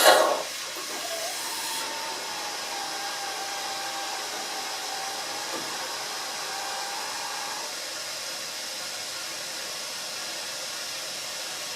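HZG Rex Royal S200 automatic coffee machine steaming milk and dispensing the foam into the cup: a steady hiss of steam and air that starts with a brief louder burst. A faint steady whine runs from about a second in until about eight seconds.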